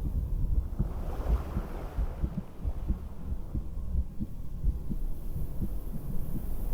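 A person's heartbeat heard through a stethoscope: low, muffled thumps in a steady rhythm.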